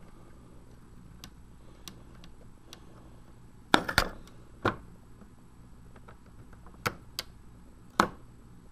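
Handling sounds while wiring a small plastic trail-camera case: scattered sharp clicks and taps of fingers, wire and a small screwdriver against the plastic case and terminal block. The loudest is a quick cluster about four seconds in, followed by a few single clicks.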